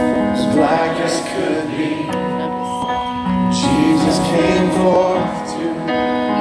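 Live band playing a slow hymn, with a singer's long, wavering sung lines over held chords, heard from the audience.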